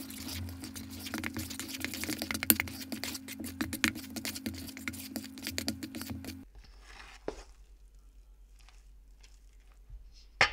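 Table knife mixing sticky dough in a stainless steel bowl: a quick run of clicks and scrapes against the bowl over a steady low hum, both stopping about six and a half seconds in. Quieter occasional scrapes follow, then one sharp metallic clink with a brief ring near the end.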